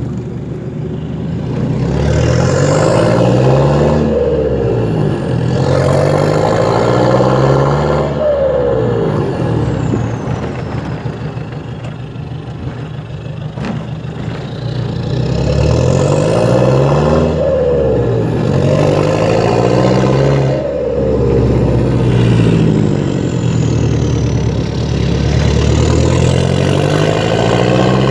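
Toyota Hilux Vigo 3.0 four-cylinder turbodiesel with its muffler removed, accelerating through the gears: the engine note climbs, drops back at each shift, then climbs again. It eases off in a quieter stretch in the middle before pulling up through the gears a second time, with a high turbo whistle rising on each pull and falling away when it lifts off.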